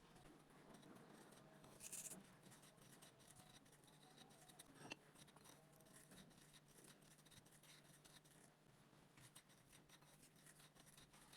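Near silence with faint scratching and scattered light clicks, a brief rustle about two seconds in and a sharp tick near the middle.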